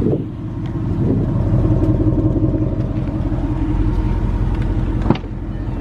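Motor vehicle engine running, getting louder about a second in and holding steady, with a sharp click near the end.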